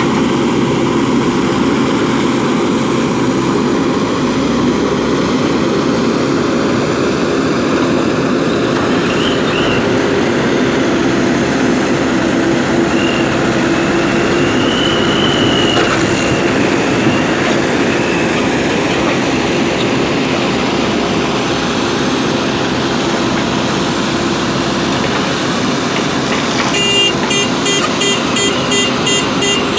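Heavy diesel machinery running steadily with a constant hum, the engine of a backhoe loader or dump truck at work. A faint high whine rises and falls around the middle. Near the end, a regular run of high tones starts.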